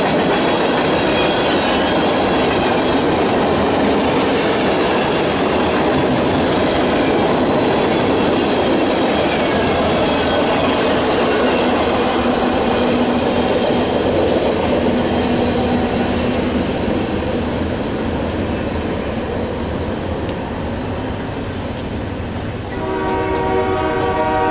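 Freight train of tank cars and boxcars rolling past close by: a steady rumble and clatter of wheels on rail that eases off about two-thirds of the way through as the train clears. Near the end a train horn sounds a chord.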